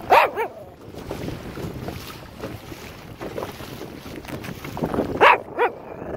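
Small pug-mix dog barking, two quick barks right at the start and two more about five seconds in, over steady wind noise on the microphone.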